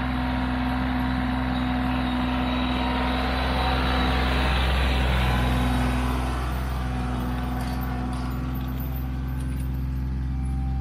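Kioti CK3510SE compact tractor's three-cylinder diesel engine running steadily under load while pulling a spring-tooth drag harrow. It grows louder as the tractor passes close by around the middle.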